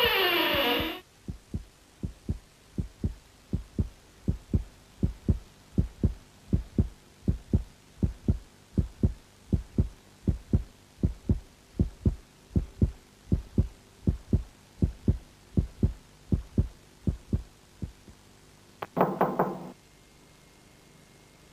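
Heartbeat sound effect: steady low thumps, about two or three a second, running for most of the stretch and stopping near the end. It opens with a falling pitch glide, and a brief low pitched tone sounds shortly after the beats stop.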